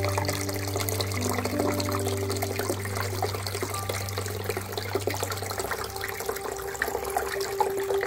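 Water trickling and splashing steadily down a small aquarium waterfall into the pool below.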